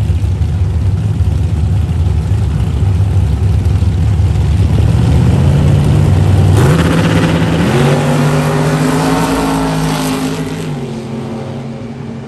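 A dragster and a Camaro drag car running their engines on the starting line, then launching side by side at full throttle about six and a half seconds in. The engine note jumps up in pitch, climbs again about a second later, and fades as the cars run away down the strip.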